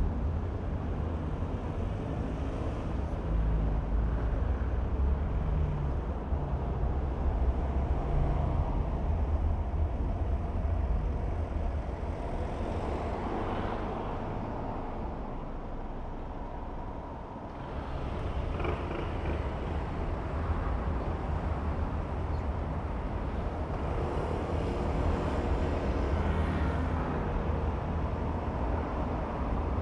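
Car driving on city streets in traffic: a steady low rumble of engine and road noise that eases off to its quietest about seventeen seconds in, then grows louder again.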